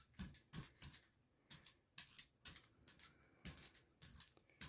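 Brayer rolling back and forth over a plastic stencil on an inked gel plate, making faint, irregular clicks and ticks, about three or four a second.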